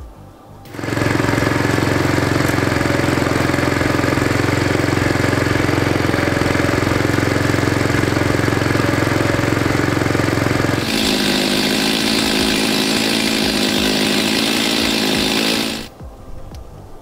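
Engine of a Gutbrod single-axle walk-behind tractor running steadily under way. About eleven seconds in, the note changes to a higher, harsher engine sound, which cuts off abruptly near the end.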